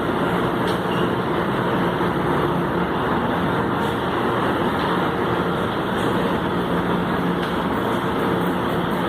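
Steady vehicle running noise: a continuous, even rumble with a faint hum in it, with no distinct passes, horns or squeals.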